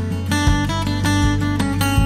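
Background music: acoustic guitar, plucked and strummed, over a bass line.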